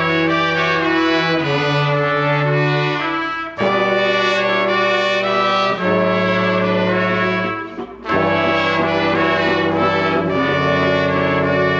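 Background music: a brass-led instrumental with sustained chords that change about every few seconds, briefly dipping just before the change near 8 seconds.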